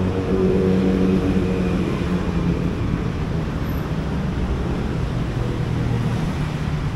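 Road traffic running along a busy city street, with the low hum of a nearby vehicle's engine that fades after the first couple of seconds.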